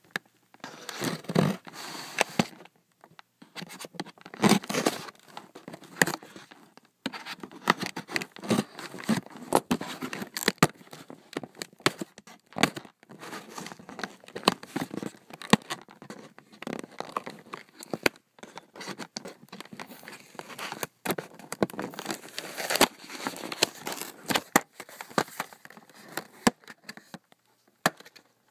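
Packaging of a cable being opened by hand: irregular tearing, crinkling and scraping with many small clicks and crackles.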